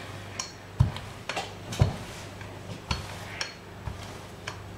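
Rolling pin working pizza dough on a floured benchtop: a few dull knocks and clicks as the pin comes down and rolls, over a low steady hum.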